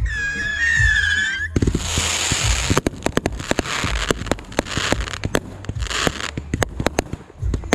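A firework whistling on a high, wavering pitch for about the first second and a half, then a dense run of crackling fireworks: many sharp small pops over a hiss, coming in several waves.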